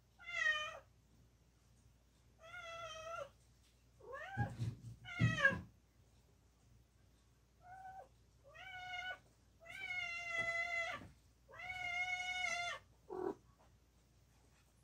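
Domestic cat meowing over and over, about eight meows, most short, a louder pair bending in pitch a little before the middle and one long drawn-out meow held for over a second past the middle.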